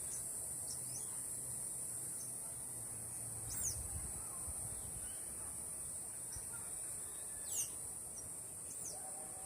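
A steady high-pitched insect drone with a few short, sharp downward-sweeping bird calls over it, the two loudest about three and a half and seven and a half seconds in.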